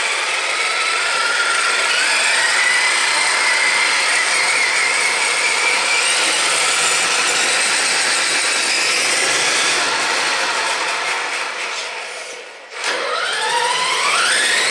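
Brushless electric motor and drivetrain of a Traxxas Summit RC monster truck, fitted with a Tekin T8 2150kv motor, whining under throttle as the truck drives. The whine climbs in pitch as it speeds up and holds high, falls away near the end, then climbs steeply again as the truck is throttled up once more.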